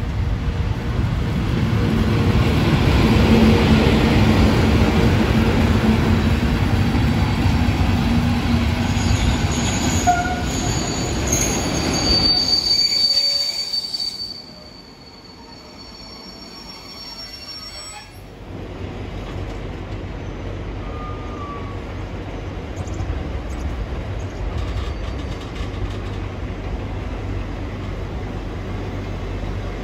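Long freight train hauled by two FS E652 electric locomotives rolling in over the points on a diverging route, a loud rumble of wheels with high-pitched wheel squeal from about nine seconds in. After a sudden drop, loaded car-carrier wagons roll slowly past with a quieter, steady rumble and a low hum.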